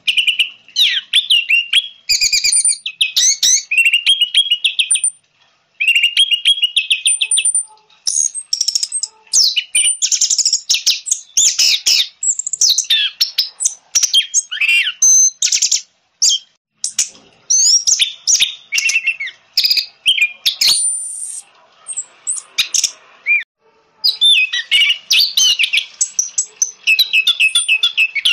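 Orange-headed thrush singing a fast, varied song of sweet whistles and chattering trills, phrase after phrase with only brief pauses.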